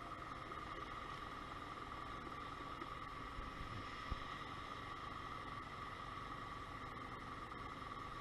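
Motobi BS1 50cc scooter engine idling steadily while stopped, with one brief thump about four seconds in.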